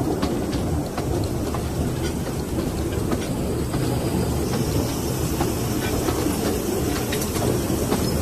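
Narrow-gauge steam locomotive Hudswell Clarke No. 1238 on the move, heard from on board: a steady low rumble of the locomotive and its wheels on the rails, with scattered faint clicks.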